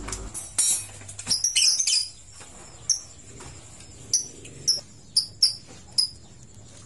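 A bird chirping in short, high calls, about eight of them at uneven intervals, over light clatter of metal engine parts being handled.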